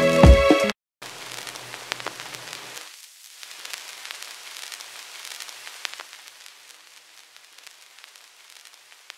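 A drum-and-keys loop cuts off under a second in. After it, a vinyl-noise sample plays in the TAL-Drum sampler: steady record crackle and hiss. A high-pass filter thins out its low end about three seconds in, and it drops in volume about six seconds in.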